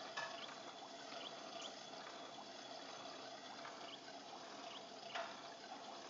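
Motorised infant swing running: a faint steady hum under a soft hiss, with a single click a little after five seconds in.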